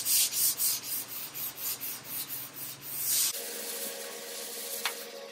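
Dry hand-sanding with 320-grit paper on a firm flat block over guide-coated primer on a 1951 Vendo 39 Coke machine door: quick, rhythmic back-and-forth scratchy strokes, turning softer about three seconds in.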